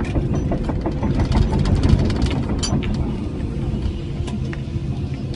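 Cat 312E L excavator's diesel engine running steadily under hydraulic load while its Herder mowing bucket cuts grass, with a run of rattling clicks over the first few seconds.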